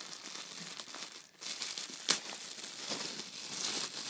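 Clear plastic polybag crinkling and rustling as it is handled around a garment, with a sharp crackle about two seconds in.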